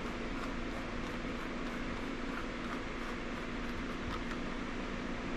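Steady hum and rushing of a running electric fan, with a low even drone that holds unchanged.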